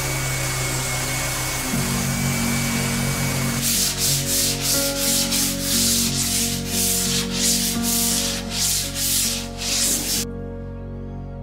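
Random orbital sander running steadily on a wood and black-epoxy tabletop. About three and a half seconds in it gives way to sandpaper rubbed by hand in quick back-and-forth strokes, which stop shortly before the end, leaving soft background music.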